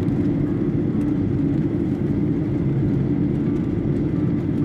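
Steady cabin drone of a Boeing 737 jet airliner in flight: the engines and rushing air make an even low hum with a softer hiss above it.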